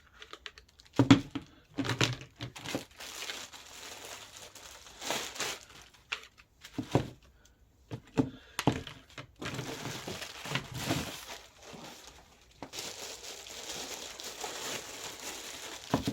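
Plastic bags crinkling and rustling as bagged plastic parts (the ride-on's hubcaps) are handled, with a few sharp knocks in between.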